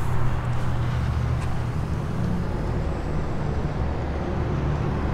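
Steady low rumble of motor vehicle noise, an even engine-like hum underneath outdoor traffic sound.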